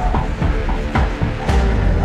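Background music with a deep bass and a steady beat about twice a second.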